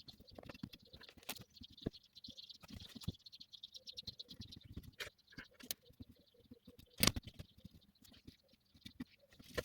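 Irregular small clicks and taps over a faint hiss, with one sharper, louder click about seven seconds in.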